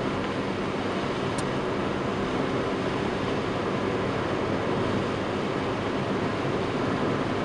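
Steady driving noise inside a car's cabin on a wet road: tyre hiss and a low engine hum. A single short high tick sounds about a second and a half in.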